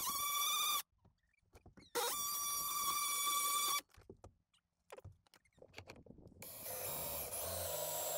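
DeWalt cordless drill running in two short bursts of a steady high whine, with a few small clicks between them. About six seconds in, a stepped drill bit starts cutting through a thin metal bracket: a rougher, noisier whir over a low hum.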